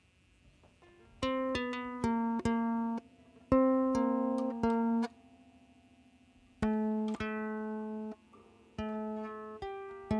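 Plucked string instrument played in short phrases of a few ringing notes, with pauses between the phrases. The first note comes about a second in.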